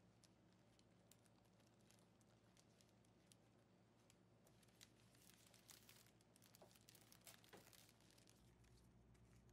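Faint crinkling and rustling of cellophane and floral wrapping paper being handled, sparse at first and denser from about halfway in, over a low steady room hum.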